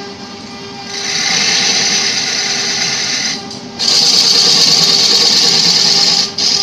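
Wood lathe running with a steady hum while a hand-held turning chisel cuts into the spinning wooden blank: a loud hissing scrape of shavings coming off, in two long passes with a short lift of the tool between them.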